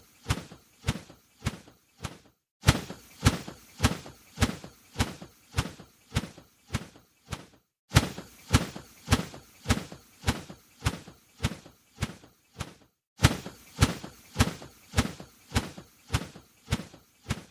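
A bird's wings flapping: runs of sharp wingbeats, about two a second, each run starting loud and fading away over some five seconds, then starting again after a brief pause.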